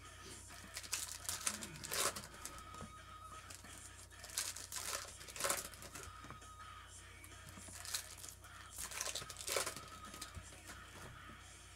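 Foil trading-card pack wrappers being torn open and crinkled by hand, in irregular sharp crackling bursts.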